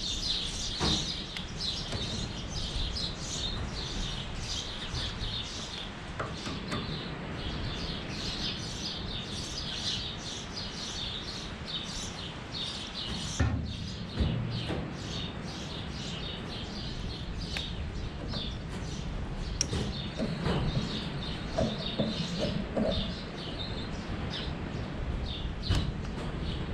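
Small songbirds chirping continuously in the background, with a few scattered knocks and clicks of handling as work goes on at the baler.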